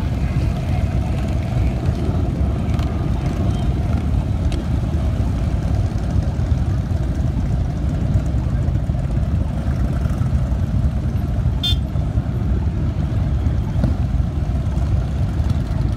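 A steady rumble of many cruiser and touring motorcycles riding past in a procession, their engines running at low speed one after another. A short high beep sounds about twelve seconds in.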